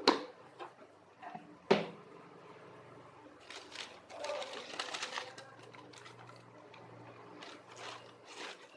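A cardboard shoebox being opened and the shoes handled: two sharp knocks early on, then rustling and crinkling of the packaging, with more crinkles near the end. A faint steady low hum lies underneath.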